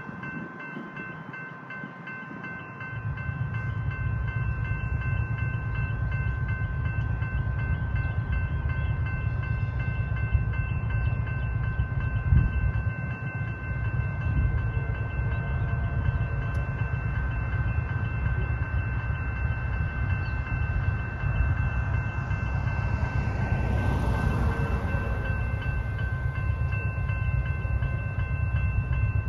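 Railway level crossing warning bells ringing steadily, with the crossing active. A low rumble joins them about three seconds in.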